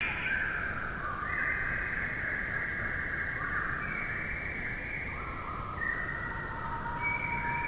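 Falcon calling, harsh and continuous, the pitch stepping up and down between several levels over a steady background hiss.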